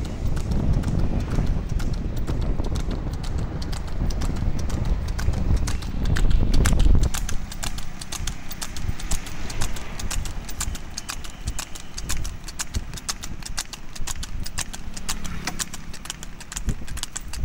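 Water buffalo's hooves clip-clopping fast and steadily on an asphalt road as it pulls a cart at a brisk trot. A low rumble sits under the hoofbeats and drops away about seven seconds in.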